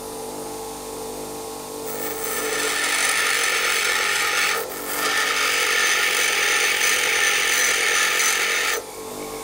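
Bench grinder motor running with a steady hum while a high-speed steel lathe tool bit is ground on the wheel. From about two seconds in, the bit pressed against the stone gives a loud hissing grind. It is lifted off briefly about halfway, then pressed on again until the grinding stops near the end.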